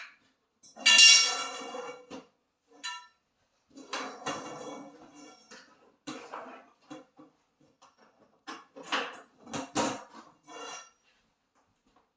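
Metal frame poles of a grow tent knocking and clinking as they are handled and pushed into their corner connectors: a run of separate clatters, some ringing briefly. The loudest is about a second in.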